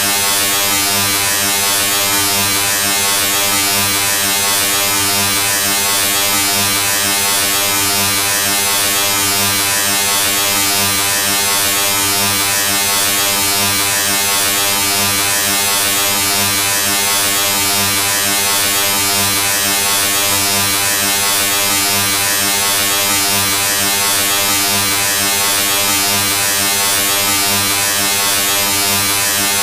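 A steady electric buzz with a low hum and many overtones over a bright hiss, unchanging throughout.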